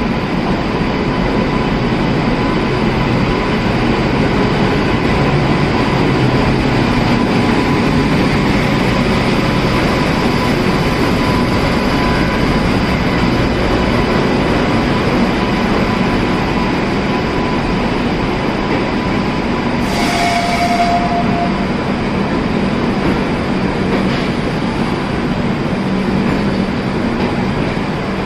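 Jharkhand Swarna Jayanti Express passenger train running, a loud steady rumble and rattle of the coaches on the rails with thin squealing tones from the wheels. A brief higher sound cuts in for about a second around twenty seconds in.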